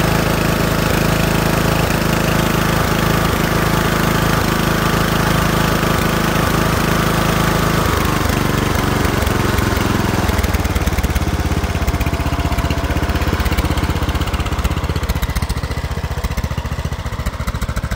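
Murray lawn mower's small engine running steadily. About eight seconds in, its pitch drops and it slows to a lower, rougher running that grows quieter toward the end.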